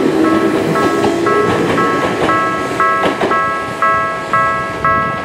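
Railway level-crossing alarm ringing in identical electronic tones, about two a second. Under it, a departing Tokyu 1000 series electric train's motor whine rises in pitch and fades out over the first second and a half.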